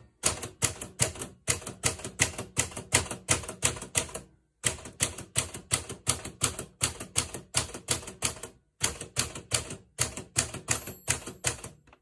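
A 1959 Smith Corona manual typewriter being typed in capitals: a run of sharp typebar strikes, about three a second, with short breaks about four and nine seconds in.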